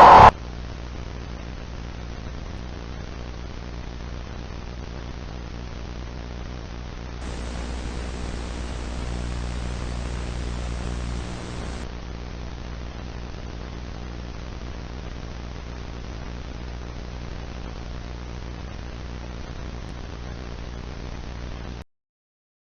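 Steady static hiss with a low hum, the dead air of a TV emergency broadcast whose signal has cut out. It gets a little louder and brighter from about seven to twelve seconds in, then stops abruptly near the end.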